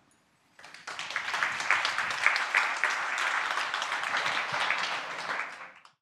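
Audience applauding, starting about half a second in and fading out near the end.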